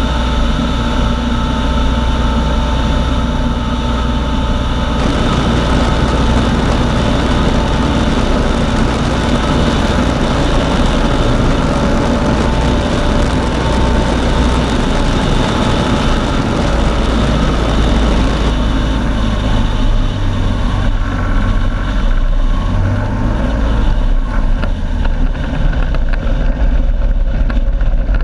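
Hirth 3202 two-stroke engine and pusher propeller of an ultralight running steadily at low power through landing and rollout. The engine is running on only one of its two magnetos after the ignition failure.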